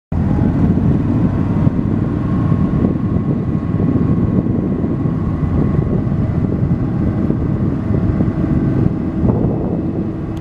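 Utility vehicle driving with its motor running steadily, with wind rumble on the microphone.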